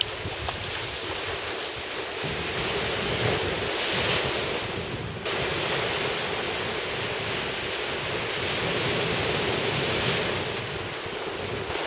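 Small waves breaking and washing up a sand beach, swelling louder about four seconds and ten seconds in, with wind buffeting the microphone. The sound steps up abruptly about five seconds in.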